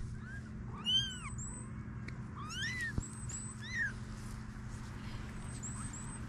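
Very young kittens mewing: four short, high-pitched mews, each rising and falling in pitch, the loudest about a second in.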